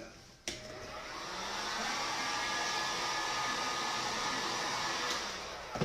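Handheld hot-air blower switched on with a click about half a second in. Its fan spins up over a second or so, blows steadily, and is switched off with a click at the end.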